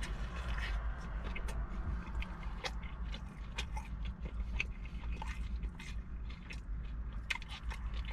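Close-miked chewing of a mouthful of burger, with many scattered wet clicks and crackles from the mouth.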